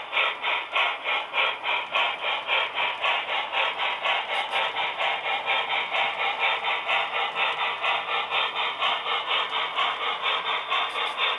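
HO scale model freight train running on the layout, its sound making a steady, even beat about four times a second.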